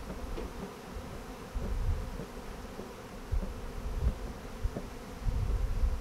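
A mass of honeybees in flight buzzing steadily around a colony being disturbed and moved out of its nest. Low rumbles come and go now and then.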